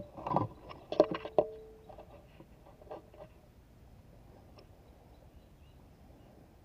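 Handling noise from the scoped air rifle and its scope camera as the rifle is swung: a quick run of clicks and knocks, the sharpest about a second in, followed by a short ringing tone. After that only faint background hiss.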